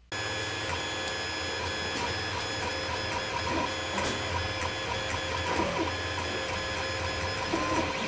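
Creality CR-10 3D printer printing: the stepper motors whine in several steady tones that start, stop and change pitch as the print head moves, over the steady hiss of the hotend's cooling fans.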